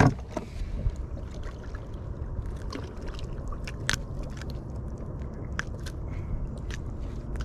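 Scattered small clicks and scrapes of hands handling a trout and threading it onto a fish stringer, with a brief louder rustle right at the start. A steady low rumble runs underneath.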